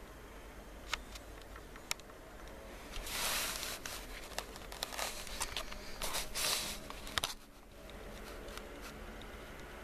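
Rustling and handling noise with scattered sharp clicks, loudest from about three seconds in and stopping abruptly after a last click near seven seconds.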